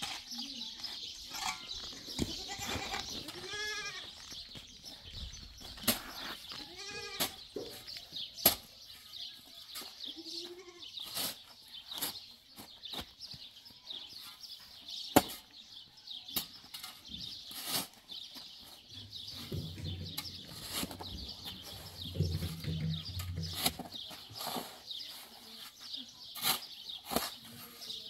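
Livestock bleating: a few wavering calls about three and seven seconds in and a shorter one near ten seconds, over a steady high-pitched chirring and scattered sharp clicks, with a low rumble in the second half.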